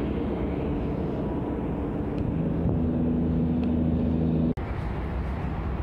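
Steady low rumble of city traffic, with an engine hum that comes and goes. The sound drops out abruptly for a moment about four and a half seconds in.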